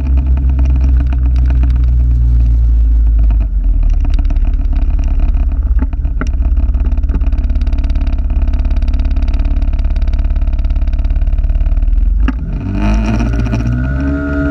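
Vehicle running on the road, heard from a camera clipped to its rear-view mirror, with a heavy low rumble and a steady engine note. About 12 seconds in the sound dips briefly, then the engine note rises and falls as the speed changes.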